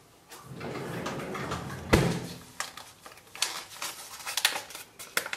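A sharp knock about two seconds in, then a run of crisp paper crinkling as a paper sachet of jam gelling powder is handled and torn open.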